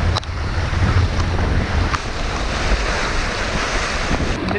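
Wind buffeting the microphone with a low rumble, over the rush of waves along a sailboat's hull as it sails through choppy sea; a couple of light knocks.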